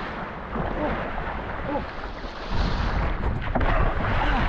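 Wind buffeting the microphone over rushing water, with a heavy low rumble that grows louder about halfway through, and faint shouting voices in the background.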